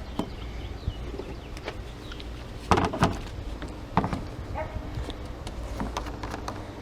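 A few sharp clicks and knocks of handling a can of engine flush and the oil filler cap under the hood, over a steady low hum.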